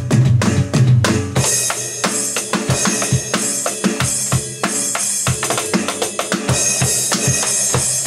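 Electronic drum kit played fast: a dense run of snare and tom hits over bass drum strokes, with cymbal wash through most of it.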